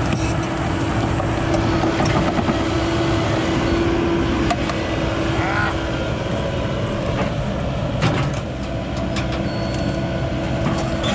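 Cat 308E2 mini excavator's diesel engine running steadily, with a few sharp metal clanks from the undercarriage while the track is off.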